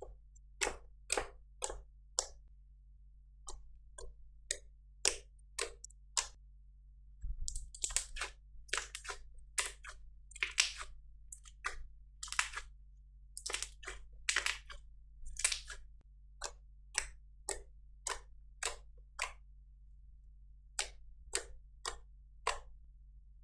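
Homemade slime being pressed and poked by hand: a string of short sticky squelches and pops, roughly two a second, with a busier stretch of longer squishes in the middle.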